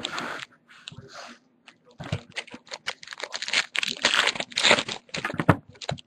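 Trading-card pack wrappers crinkling and tearing open as packs are handled. From about two seconds in it becomes a dense run of irregular crackles.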